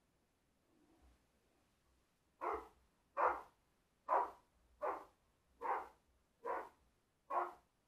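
A Rottweiler barking, seven loud barks at an even pace of a little more than one a second, starting about two and a half seconds in.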